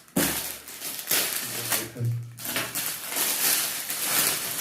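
Plastic packaging rustling and crinkling with many small crackles as it is pulled and torn open by hand.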